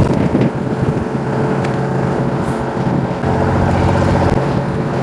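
Fishing boat's engine running with a steady low drone, with a couple of light clicks on top.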